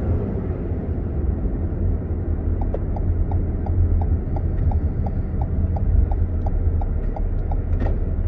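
Steady road and engine rumble heard inside a moving car, with a turn-signal indicator ticking evenly about three times a second from a couple of seconds in, signalling a turn. A single sharper click comes near the end, just after the ticking stops.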